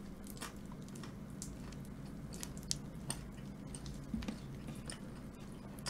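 Faint close-up chewing of crispy boneless fried chicken, with a few scattered small clicks and crunches.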